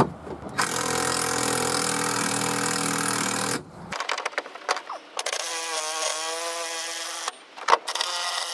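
Cordless drill driving screws through untapped factory holes in a pickup bed's sheet-metal side, the screws cutting their own way in. The motor whines in three runs with short breaks, and the pitch wavers in the middle run as the screw loads it.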